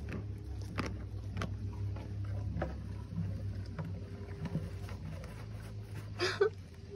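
A horse drinking from a bucket of water: irregular gulps and the water sloshing in the bucket, with a louder noisy burst about six seconds in.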